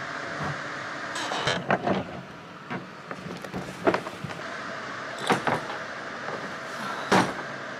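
A black hard-shell suitcase being handled on a wooden floor, giving a series of short clicks and knocks from its shell and fittings, the sharpest near the end, over a steady background hiss.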